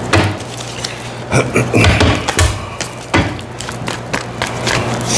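Tarot cards being handled and shuffled by hand, with a run of short taps and knocks against a wooden surface. A low steady hum runs underneath.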